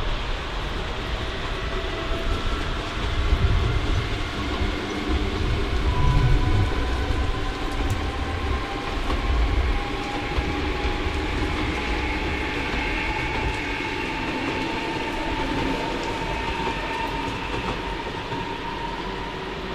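A train moving through the station: a heavy rumble with wheel clatter in the first half, and several whining tones that drift slowly in pitch throughout.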